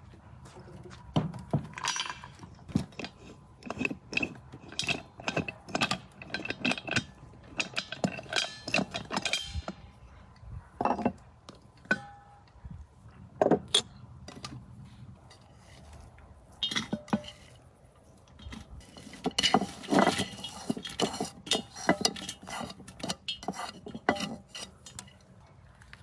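Repeated clanks, knocks and clinks of metal cookware: an Afghan pressure cauldron and its heavy valved lid being handled and set down, with pieces of goose laid on a metal platter. The knocks come in clusters, some ringing briefly, with a quieter stretch in the middle.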